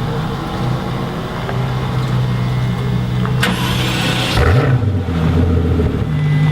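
Car engines running steadily. About three and a half seconds in, a rushing burst of noise lasts just over a second, and a deep engine note drops and then climbs back.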